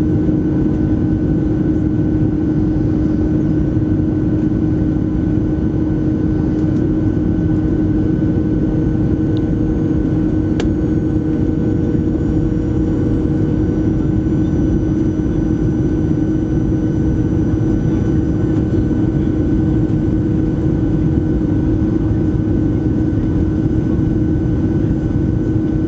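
Cabin noise inside a Boeing 737-700 descending to land: the steady rush of air and the drone of its CFM56-7B turbofan engines, with a strong steady low hum and a fainter high whine over it.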